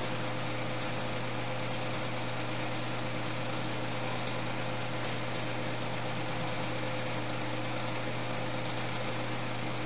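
Steady low hum with a faint constant tone above it and an even hiss: background room noise, with no distinct handling sounds.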